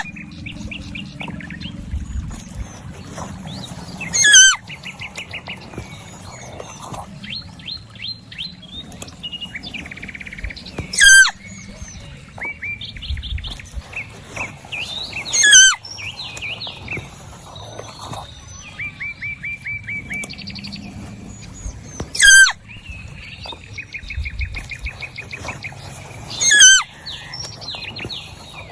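Several birds chirping and trilling. A loud, quick call falling in pitch cuts through about five times, every four to seven seconds.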